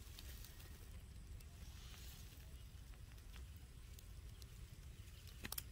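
Faint outdoor ambience: a steady low rumble with scattered small clicks and rustles, and a quick cluster of sharp clicks near the end.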